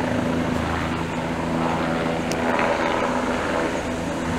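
Light turbine helicopter in flight, carrying a water bucket on a long line: its rotor and engine make a steady whir that holds an even pitch.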